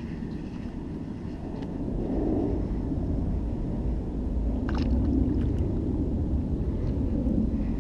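Low, steady rumble of wind buffeting the microphone, getting louder about two seconds in, with a few brief clicks about five seconds in.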